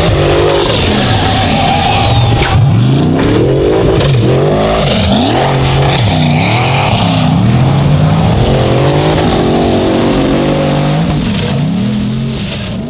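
Race car engine revving hard, its pitch rising and falling over and over, with faint high whistling glides above it. It fades out near the end.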